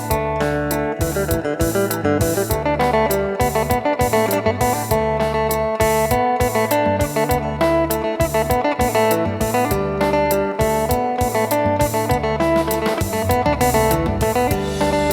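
Thai phin, the plucked Isan lute, playing a fast run of melody notes over a steady beat and bass.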